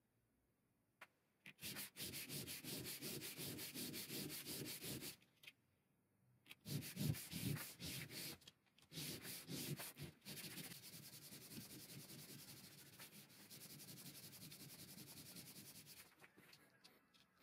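A small metal piece rubbed by hand in quick back-and-forth strokes on a strip of sandpaper, flat-sanding it with a dry, rasping scrape. The strokes start about a second and a half in, pause briefly, then run on steadily and fade near the end.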